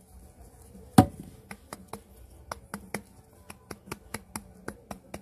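Fingers tapping a glitter-coated vase about four times a second, knocking off loose glitter, after one louder knock about a second in.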